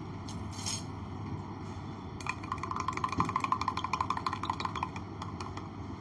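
Spoon clinking rapidly against a glass as a drink is stirred, starting about two seconds in and stopping about five seconds in.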